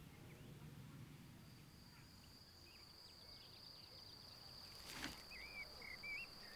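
Faint insect drone: one steady high note that sets in about a second and a half in. A single click comes about five seconds in, followed by a few short bird chirps.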